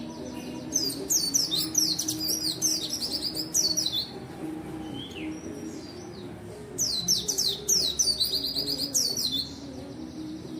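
White-eye (pleci) in full song, singing two long runs of rapid, high, falling chirps with a few single notes between them, over a steady low background hum.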